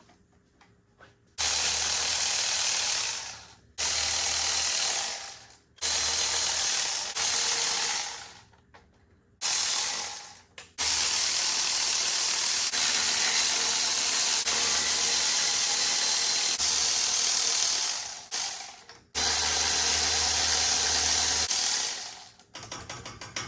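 Power ratchet running in six trigger-pulls of one to eight seconds, each starting abruptly and winding down, spinning out bolts.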